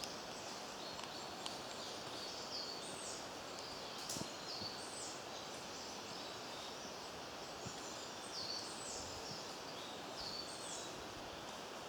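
Steady outdoor background noise with short, high-pitched chirps repeating every second or so, and a single faint tap about four seconds in.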